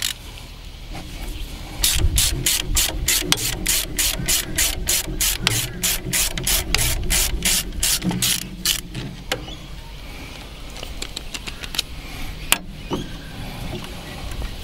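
Spanner worked rapidly back and forth on a bolt to loosen a tractor's steering-column plate: a fast, even run of metallic clicks, about four a second, from about two seconds in until about nine seconds, then a few single clicks.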